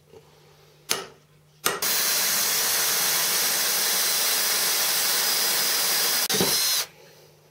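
Cordless drill boring a hole into the mini lathe's bed: two short blips of the trigger, then a steady run for about five seconds, with a brief dip near the end before it stops.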